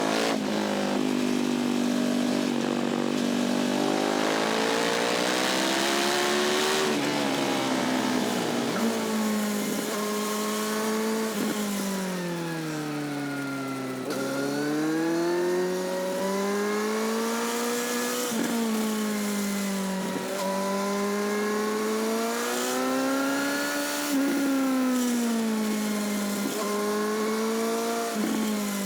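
Motorcycle engine and exhaust under way, revving up and easing off again and again, its pitch rising and falling with several quick breaks as it shifts gear.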